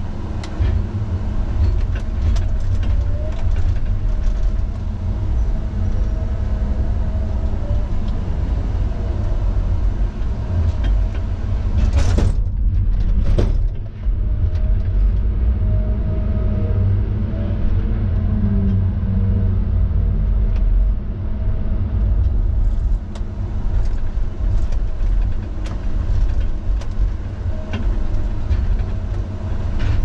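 Tigercat log loader's diesel engine and hydraulics running steadily, heard from inside the cab as a deep continuous rumble with scattered knocks as logs are handled. Two brief loud bursts of noise come about twelve and thirteen and a half seconds in.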